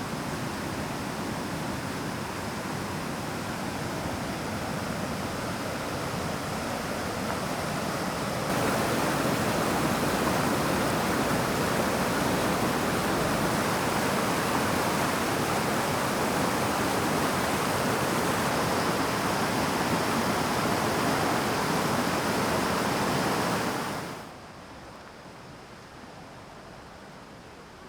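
Rushing water of Choshi Falls on the Oirase Stream, a steady full-range noise. It jumps louder about a third of the way in, then falls off abruptly near the end to a quieter, thinner water sound.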